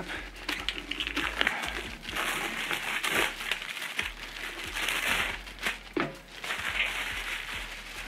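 A new Hoosier tire's purple plastic wrapper crinkling and tearing in several bursts as it is stripped off by gloved hands, with a few light knocks.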